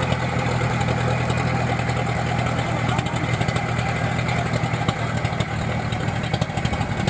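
Engine of a crawler rice-hauling tractor running steadily at a constant speed, with a fast, even pulsing beat.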